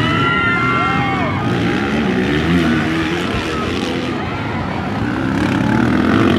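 Motocross dirt bike engines revving, their pitch rising and falling, with several overlapping near the start.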